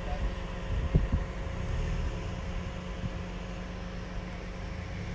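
Wind buffeting a phone microphone outdoors with a low, uneven rumble, and a couple of sharp handling thumps about a second in.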